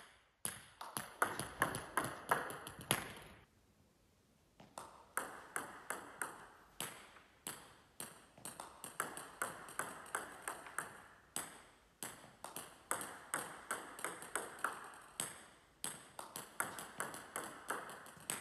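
Table tennis balls clicking in quick runs as a player practises side-spin (hook) serves one after another: racket contact, bounces on the table and balls bouncing on the hall floor. There is a short pause about four seconds in.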